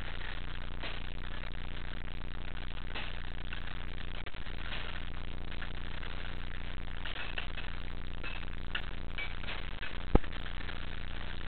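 Steady low hum and background din of a busy indoor play hall, with faint distant children's voices; a single sharp knock about ten seconds in.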